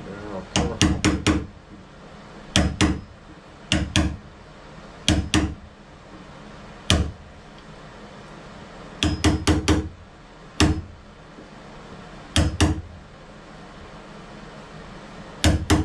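Hammer tapping a wood chisel into the edge of a thin, hollow fiberboard door, cutting the latch faceplate recess deeper. The taps come in short groups of one to five sharp strikes, with pauses of a second or two between groups.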